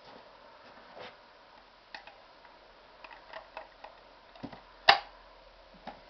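Scattered light clicks and taps from handling a homemade timber briquette press, with one sharp knock about five seconds in.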